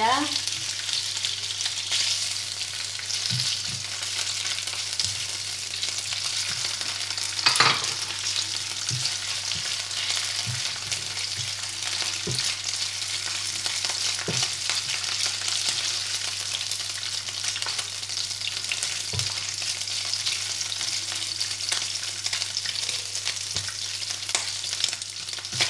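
Peeled prawns and chopped garlic frying in hot oil in a nonstick pan, a steady sizzling hiss. Scattered knocks and scrapes come from stirring with a silicone spatula, the loudest about seven seconds in.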